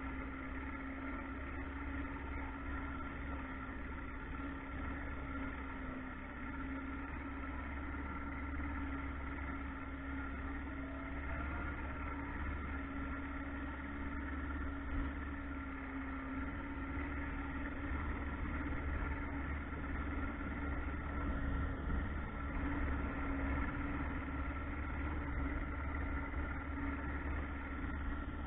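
Boat motor running at a steady, unchanging pitch, with a low rumble underneath.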